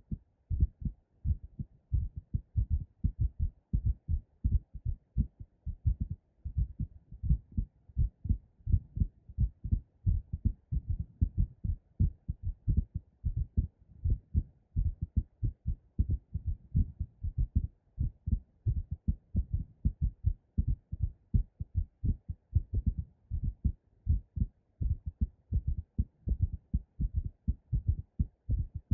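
Two recordings of a woman's heartbeat played together, one in each stereo channel: a fast, pounding heartbeat after squats, and a heartbeat recorded with the breath held and the chest pressed. Dull low thuds come thick and close together, the two rhythms overlapping.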